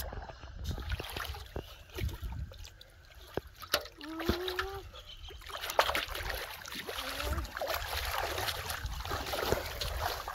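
Hands splashing and churning shallow muddy water in irregular splashes and sloshes, getting busier in the second half. A brief wavering tone sounds about four seconds in.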